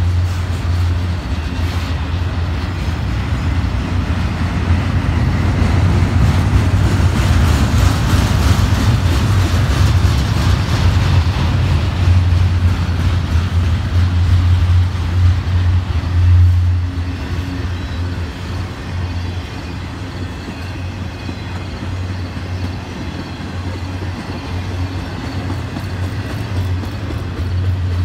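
Double-stack intermodal freight cars rolling past: a steady rumble of steel wheels on the rails, louder through the middle and easing off over the last third.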